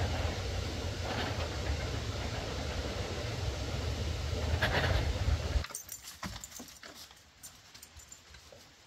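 Wind buffeting the microphone with a steady low rumble, with a dog panting; it stops abruptly about five and a half seconds in, leaving only faint rustles and clicks.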